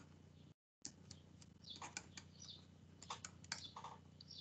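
Near silence with faint, irregular taps and scratches of a stylus writing on a tablet. The audio drops out completely for a moment about half a second in.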